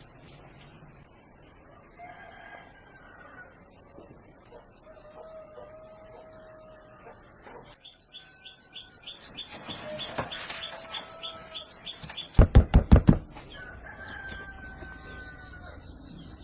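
Roosters crowing repeatedly, each crow a long call, over a steady high insect drone. Just past the middle comes a quick run of about five loud knocks, the loudest sound.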